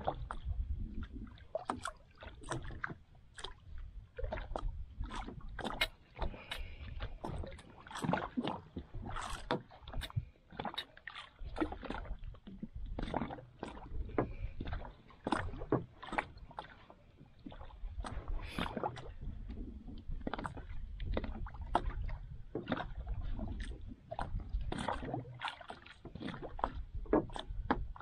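Water slapping and lapping against the hull of a small outrigger boat, heard as many irregular sharp clicks and knocks over a steady low rumble.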